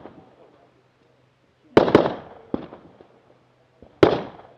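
Rifle shots fired on a practical rifle stage, sharp cracks with an echoing tail: a quick pair about two seconds in, then one more shot, and another near the end.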